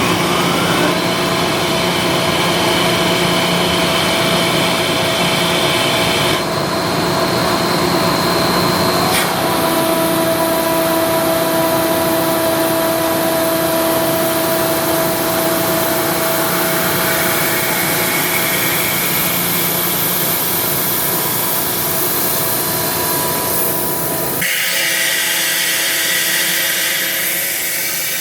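Ingersoll Rand SSR-EP60 60 hp air-cooled rotary screw air compressor running just after start-up with its intake open, a steady loud whir carrying several steady tones. About three and a half seconds before the end the deep rumble drops away and the tones shift as the compressor changes load.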